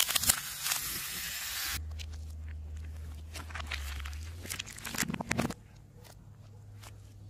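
Car tyre rolling slowly over gritty asphalt and pressing on a heap of small gel balls: a hiss of tyre on grit at first, then a low engine hum under scattered crackles that bunch into a louder burst about five seconds in.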